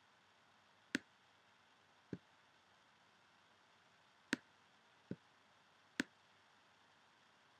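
Computer mouse button clicking five times, spaced irregularly: three sharp clicks and two duller ones.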